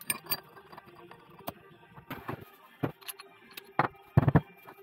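Metal clinking and knocking of tools against the parts of a truck air compressor being taken apart: a handful of separate sharp clinks, then the heaviest, deeper knocks about four seconds in.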